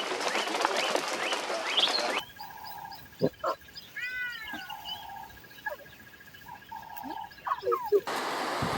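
Animal calls: a dense chorus of high chirps, then, after an abrupt cut about two seconds in, a quieter stretch with a few separate calls, one of them sliding up and down in pitch.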